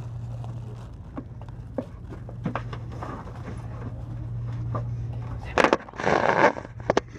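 A steady low hum with faint rustles and small knocks. About five and a half seconds in, loud scraping and rustling handling noise takes over as the camera is jostled.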